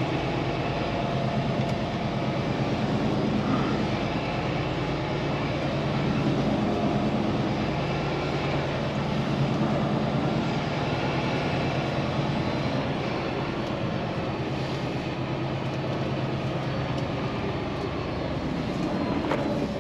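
Semi truck's diesel engine running steadily at low speed, heard from inside the cab while the rig creeps and turns through a parking lot.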